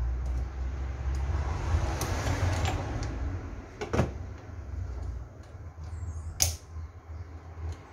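Parts of a Yamaha Lander 250 rear shock absorber being worked into place by hand in a bench vise: scraping and handling noises, with a sharp metal knock about halfway through and another, louder one later, over a steady low hum.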